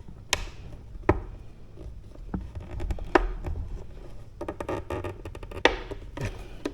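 Scattered sharp clicks and light knocks over faint rustling: hands working a wiring connector and plastic fairing parts while trying to force the connector through a hole that is too small.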